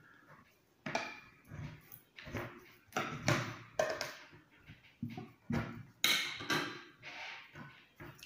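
The can-opener blade of a 35–40-year-old Wenger Swiss Army knife is levered around the lid of a steel food can. It makes a run of short metallic crunches and clicks, roughly one or two a second, as each stroke cuts further into the tin.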